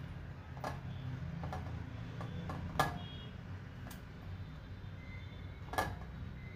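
A few short clicks and taps from a hand working a bread slice in milk in a stainless steel bowl, the two sharpest about three seconds in and near the end, over a steady low hum.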